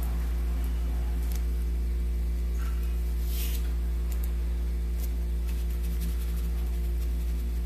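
A steady low electrical hum runs throughout. Over it come a few faint, brief scratchy strokes, the clearest a little over three seconds in, as paint is worked onto fabric through a stencil.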